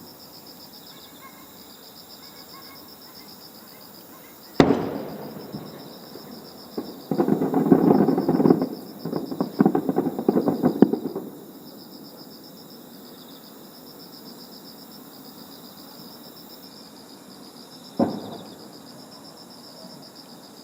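Fireworks shells bursting: a sharp boom with a rolling echo about four and a half seconds in, then a few seconds of dense crackling, and another boom near the end. Crickets chirp steadily underneath.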